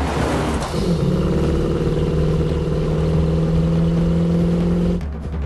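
Muscle car's V8 engine running at high, steady revs. A noisy rush in the first second gives way to the engine note, which dips slightly and then holds steady before cutting off abruptly about five seconds in.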